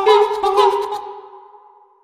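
Music with a singing voice ending, its last held notes dying away over about a second and a half.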